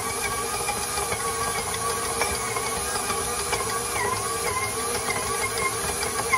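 KitchenAid stand mixer motor running steadily, working a stiff sweet-bread dough in its steel bowl, with a slightly wavering whine over a steady hiss.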